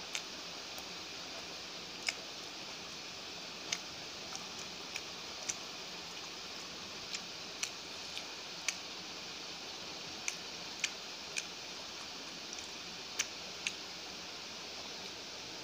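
Eating by hand: about fifteen short, sharp mouth clicks of chewing, at irregular intervals, over a steady hiss.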